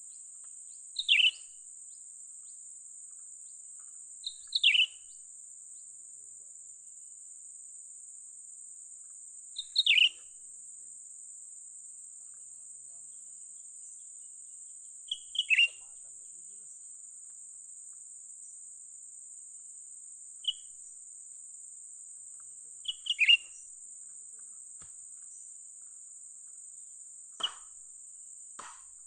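Cucak ranting bird calls: short, sharp notes that fall in pitch, repeated every three to five seconds, over a steady high insect drone.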